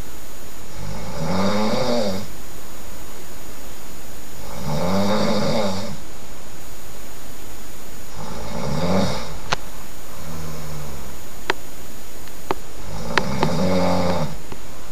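A person snoring loudly in their sleep: four long snores about every four seconds, each a buzzing tone that rises then falls, with a softer one between the third and fourth. A few sharp clicks come in the second half.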